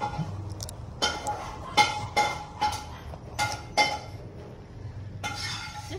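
Shih Tzu barking at close range: a string of short, high-pitched yaps, about seven, with a longer drawn-out one near the end.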